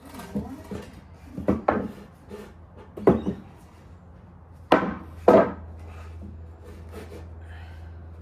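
Pieces of timber knocking and clunking as they are handled and set down, about six irregular wooden knocks, the loudest pair about five seconds in.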